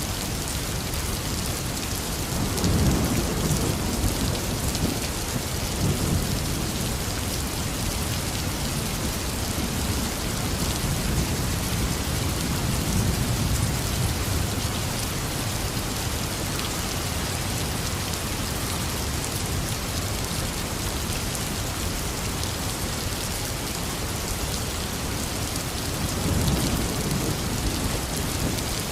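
Heavy rain falling steadily, with low rolls of thunder swelling up several times, the strongest about three seconds in and again near the end.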